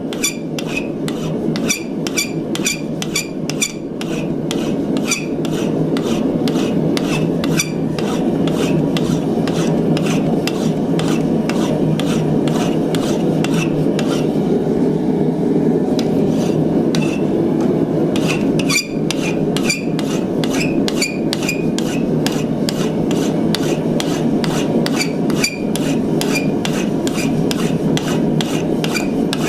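Hand file rasping across hot ½ inch steel bar in quick, even strokes, about two to three a second, with a brief thinning midway; hot steel files fast. A steady low rushing noise runs underneath.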